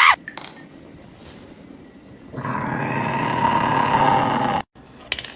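A dog growling for about two seconds, starting about halfway in and cutting off abruptly.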